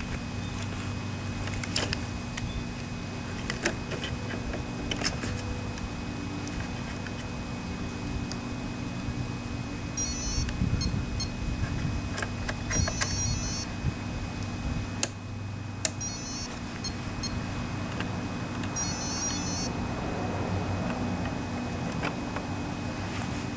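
Powered-up RC model truck giving a steady low electronic hum, with scattered sharp clicks as its hood and fittings are handled. Two spells of rapid high electronic chirping beeps come about ten and seventeen seconds in.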